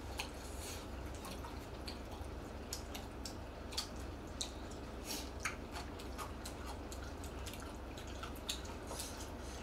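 People chewing noodles with their mouths close to the microphone: a scatter of short, wet mouth clicks and smacks over a steady low hum.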